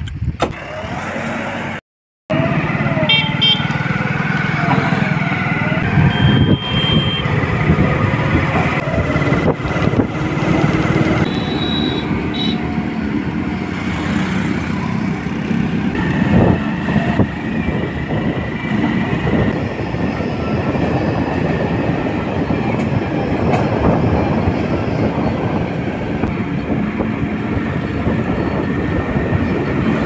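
JCB 3DX backhoe loader's diesel engine running steadily, with a few short high tones over it. The sound cuts out for a moment about two seconds in.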